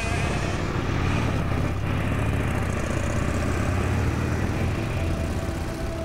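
Two Triumph motorcycles pulling away and riding off, their engines running with a deep, steady note that eases a little near the end.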